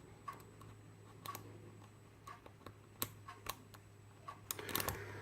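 Small, scattered metal clicks and ticks of a tension wrench and pick going into and working in the keyway of a Yale euro cylinder lock, with a quick cluster of clicks near the end, over a faint steady hum.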